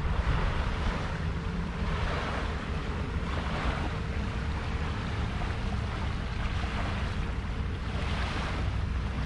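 Wind noise on the microphone over small waves washing onto a sandy shore, the wash swelling up every couple of seconds.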